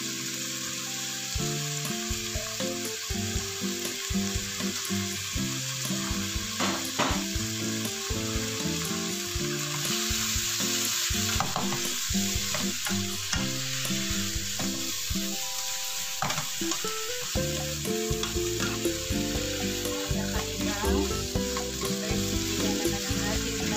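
Water bamboo and squid stir-frying in a nonstick frying pan: a steady sizzle, with a spatula stirring and scraping the pieces against the pan now and then.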